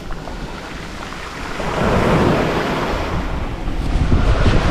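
Mediterranean surf breaking on the beach, with wind rumbling on the microphone; the wash of the waves swells louder about two seconds in.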